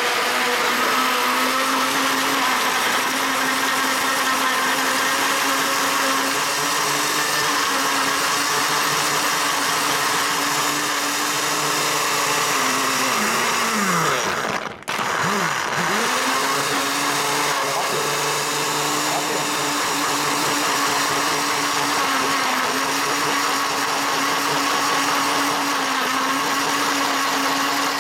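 Countertop blender running steadily, crushing ice with banana, papaya and powdered milk into a thick shake. About halfway through the motor winds down, stops for a moment and spins back up to the same steady pitch.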